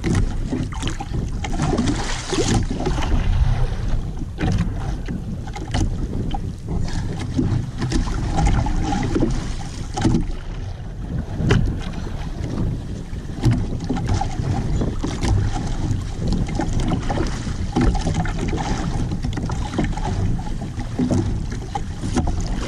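Wind buffeting the action-camera microphone over sea water slapping against a small outrigger boat's hull, with scattered short knocks.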